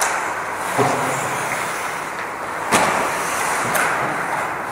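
Ice hockey play: a steady scrape of skates on the ice with a few sharp knocks of sticks and puck, the loudest about three seconds in.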